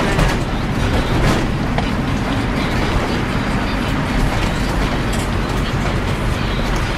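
Steady road and tyre noise of a car driving over a slushy, snow-covered road, heard from inside the cabin, with one brief swish a little over a second in.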